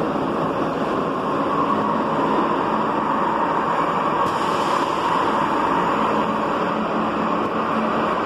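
Santiago Metro NS74 rubber-tyred trains running through an underground station, a steady rumble and hiss. About four seconds in, a brighter hiss joins as a train passes the platform at speed.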